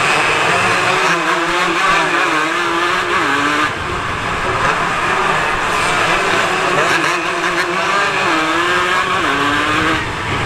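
150cc racing motorcycle engine heard from onboard, held at high revs with the pitch wavering. The revs drop sharply twice, about three and a half seconds in and again near the end, as the throttle closes.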